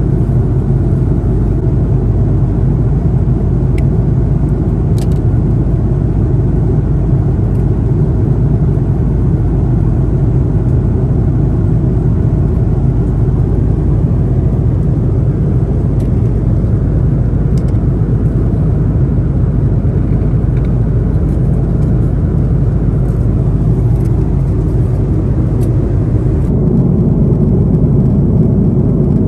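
Airbus A330-200 cabin noise: a steady low rumble of engines and airflow with a few faint clicks. About 26 seconds in the sound shifts, the hiss above thinning and a lower hum growing stronger.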